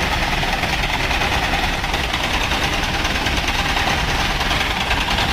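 A heavy machine's diesel engine running steadily, with an even, rapid pulsing beat.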